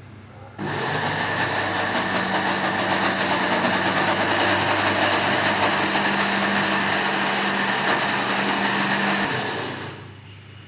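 Electric mixer running steadily, beating butter and sugar together; it starts abruptly about half a second in and winds down about a second before the end.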